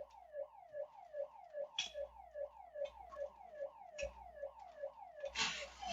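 Electronic alarm siren sounding a fast, repeating falling whoop, nearly three sweeps a second, with a couple of faint knocks.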